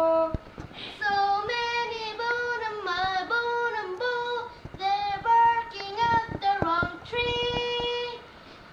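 A young girl singing wordless vocal runs: a string of short phrases that slide up and down in pitch, ending on a held note that stops about 8 seconds in.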